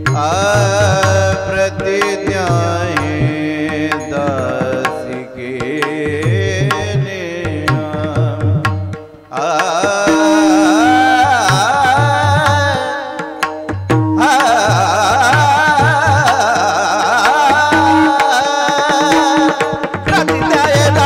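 Devotional bhajan music: a wavering, ornamented singing voice over a hand drum keeping a steady rhythm. From about ten seconds in, a steady held note runs beneath.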